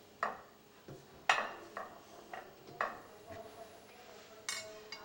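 Glass baking dish knocking and clinking as pound cake slices are laid and pressed into it by hand: a string of separate sharp knocks, a few with a short ring, the loudest about a second in.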